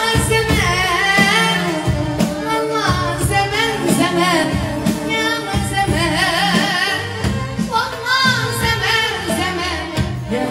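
Moroccan chaabi wedding music: a woman sings a long, ornamented melody over a dense band with steady hand percussion.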